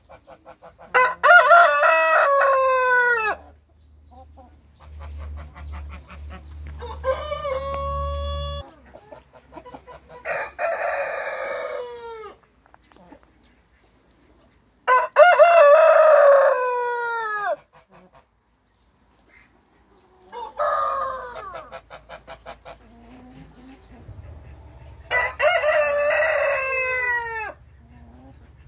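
Brahma roosters crowing in turn, about six drawn-out crows that each fall away at the end. The three loudest come about a second in, halfway through and near the end, with softer crows between them.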